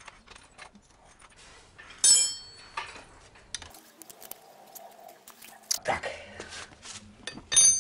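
Metal clinks and taps of an open-end wrench and a steel bicycle pedal as the pedal is threaded onto the crank arm and tightened. A sharp clink that rings on briefly about two seconds in, and another near the end.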